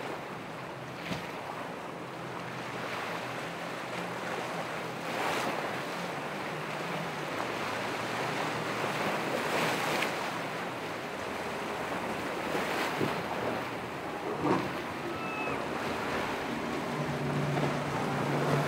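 Ocean surf breaking in rough water, with wind buffeting the microphone and several louder wave crashes. Underneath runs the low steady hum of boat engines, which grows louder near the end.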